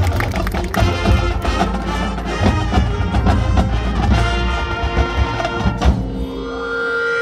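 Marching band playing, with brass over a drumline's many sharp strikes, settling into a held brass chord about six seconds in.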